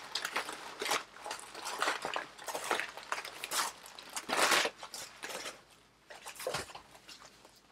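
Tissue paper rustling and crinkling in irregular bursts as it is pulled off and handled, loudest about halfway through and quieter near the end.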